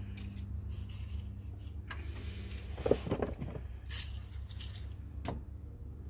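Metal clicks and clinks from hands and tools working on a zero-turn mower's steering bell-crank shaft and linkage, with one louder knock about three seconds in, over a steady low hum.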